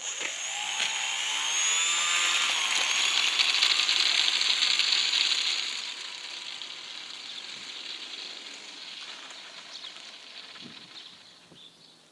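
Homemade foam RC airplane's electric motor and propeller whining, rising in pitch as the throttle opens, then fading from about halfway through as the plane runs away down the path.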